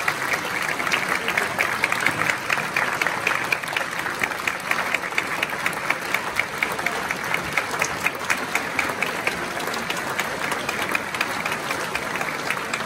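Audience applauding steadily in a standing ovation, a dense patter of many hands with a few nearby claps standing out sharper.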